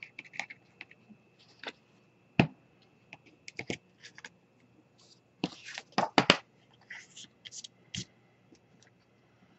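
Handling noises of paper crafting: scattered sharp taps and clicks with light rustling as a cardstock panel and a plastic glue bottle are picked up, set down and moved about on a cutting mat. The loudest is a quick run of clicks about six seconds in.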